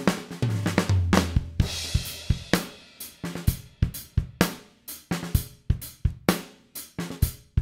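Recorded acoustic drum kit playing back a groove: kick, snare, hi-hat and cymbals, as tracked and not yet reinforced with kick and snare samples.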